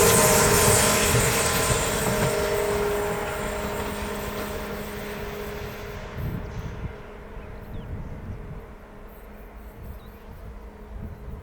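A train moving away along the rails, its running noise dying away steadily, with a fading wheel squeal in the first few seconds.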